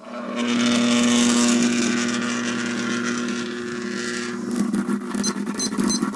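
Plasma electrolysis cell switched to full power, with a glowing discharge at the underwater electrode: a loud, steady electrical buzz with a hum and a hiss. About four and a half seconds in it turns into irregular crackling and sizzling.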